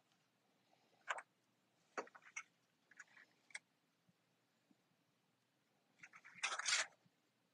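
Cardstock being handled on a tabletop: a few light clicks and taps, then a short paper rustle near the end.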